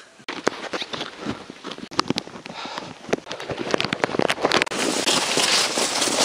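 Snow crunching and scraping in irregular crackling clicks. About four and a half seconds in, this turns into a steady, louder hiss of a sled sliding over snow.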